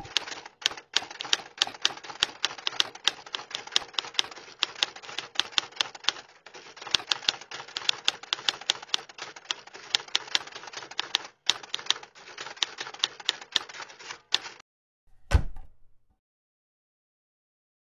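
Typewriter keys clacking in a quick, irregular run with a few short pauses, as a typing sound effect. The typing stops about 14.5 seconds in and is followed by a single heavy thump.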